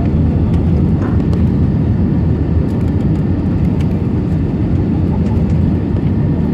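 Steady low roar of jet engines and rushing air inside an airliner's cabin on final approach, low over the ground just before touchdown.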